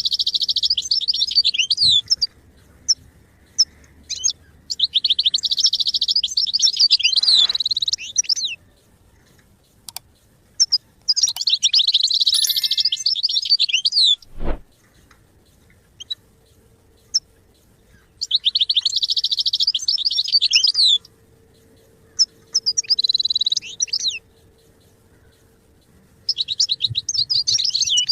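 European goldfinch singing: fast, liquid twittering phrases, each two to three seconds long, repeated about six times with short pauses between. There is a single sharp click about halfway through.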